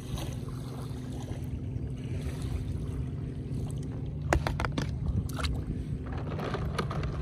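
Steady low outdoor rumble of wind buffeting the microphone, with a faint steady hum under it. A few sharp clicks come about four to five and a half seconds in.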